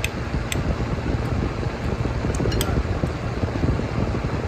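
Fork and spoon clinking lightly against a plate a few times while food is cut and scooped, over a steady low background noise.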